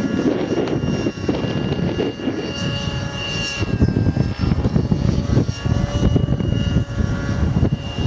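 Nitro glow engine of a T-Rex 600 radio-controlled model flying overhead, a steady high-pitched whine whose pitch wavers a little as it manoeuvres. Wind buffets the microphone underneath.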